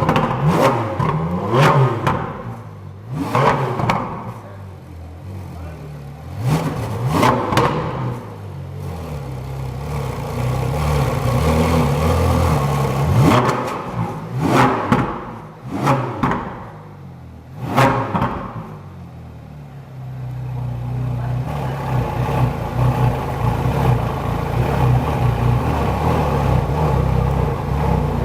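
Ferrari 458 Speciale's 4.5-litre naturally aspirated V8 being revved while stationary, in a series of sharp blips that climb and fall away quickly. At about twenty seconds in it settles to a steady idle.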